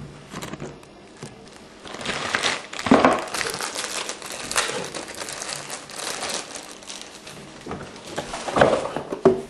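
Packaging crinkling and rustling as it is unwrapped by hand, in irregular bursts, loudest about three seconds in and again near the end.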